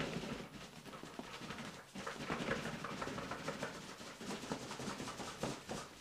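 Cardboard boxes rubbing and scraping against each other, with small knocks, as an outer shipping carton is worked off the inner box.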